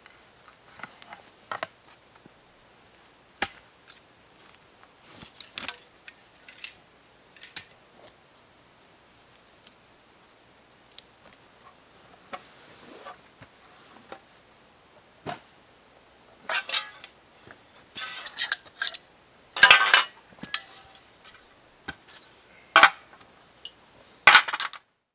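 Camping gear being unpacked from a canvas backpack: rustling of fabric and bags with scattered clinks and knocks of metal cookware being handled and set down, busier and louder over the last nine seconds.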